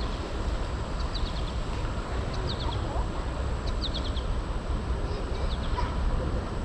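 A small bird calling in quick high clusters of three or four notes, repeated about once a second, over a steady low outdoor rush.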